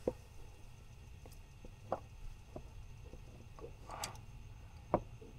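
Sparse light clicks and small knocks, a few seconds apart, from hands working at plastic parts and wiring around a car's hood latch sensor.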